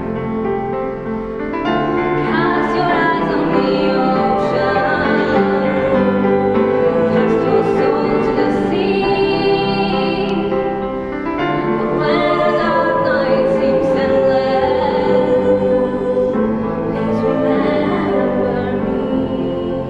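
A female soloist singing at a microphone over a mixed choir holding sustained chords.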